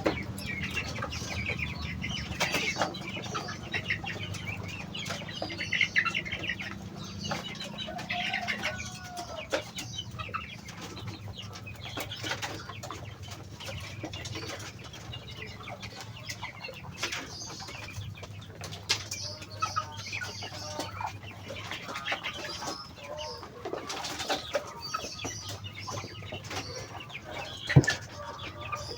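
Muscovy ducks at feeding time: wings flapping, scattered soft calls and many short clicks, over a low steady hum. A sharp click near the end is the loudest sound.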